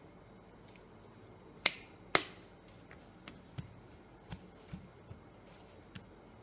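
Wet raw potato slices handled by hand on a steel plate: two sharp clicks about two seconds in, then several soft pats as the hand presses and shifts the slices.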